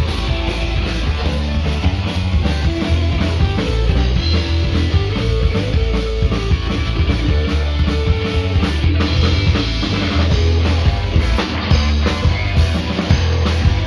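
Loud punk rock band playing live: distorted electric guitars, bass and a drum kit in an instrumental, with a steady driving cymbal beat and no vocals.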